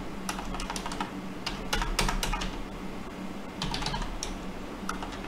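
Typing on a computer keyboard: short runs of key clicks separated by brief pauses.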